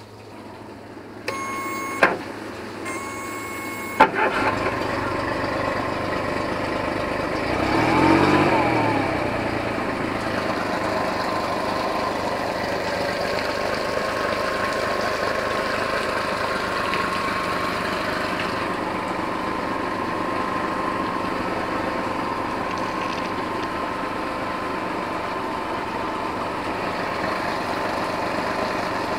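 Honda four-stroke outboard motor: two short beeps, then the engine starts about four seconds in, revs up and back down around eight seconds, and settles into a steady idle.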